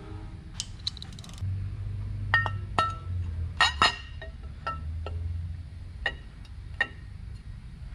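Metal clinking as a chrome Harley Twin Cam rocker box cover and its parts are handled: a string of sharp clinks with short ringing, the loudest cluster about four seconds in.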